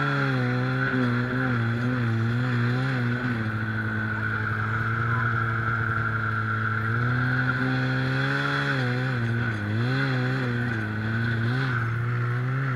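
Snowmobile engine running under a rider's changing throttle, its pitch dipping and rising over and over, holding steady for a few seconds in the middle, with a steady high whine underneath.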